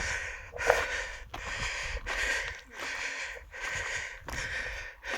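A person's quick, heavy breathing close to the microphone, a little over one breath a second, out of breath from walking up a steep slope.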